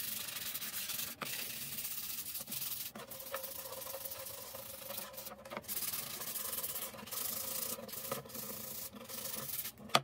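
Sandpaper rubbed by hand over the edge of a wooden ring: a rough scratching hiss in strokes, broken by short pauses. A single sharp knock comes near the end.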